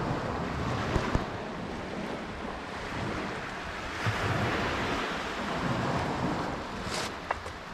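Wind buffeting the microphone in swells, with a few light clinks of a serving spoon against the cookware and plates, about a second in and again near the end.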